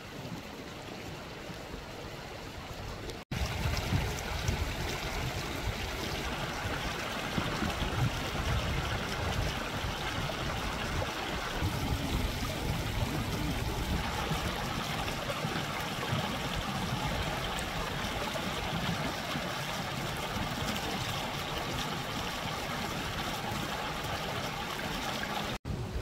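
Steady rushing of flowing water with a low rumble underneath, louder after an abrupt cut about three seconds in and broken by a brief dropout near the end.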